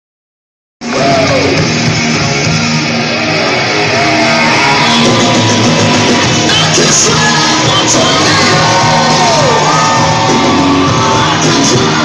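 Wrestling entrance music played loud over a hall's PA system, with crowd members shouting and yelling over it. It cuts in abruptly just under a second in.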